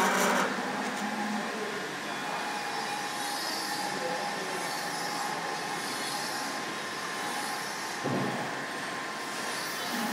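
Computer-controlled automatic pattern sewing machine running, a steady mechanical noise. It is louder for the first half second, then settles to a lower steady level, with a brief change about eight seconds in and a rise again near the end.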